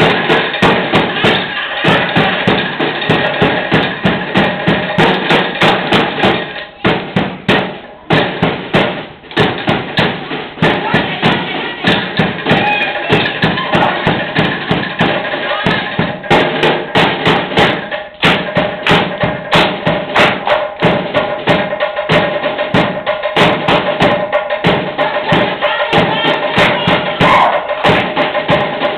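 Music for a Samoan sāsā dance: a fast, even drumbeat with voices singing over it, the beat dropping back briefly a few times.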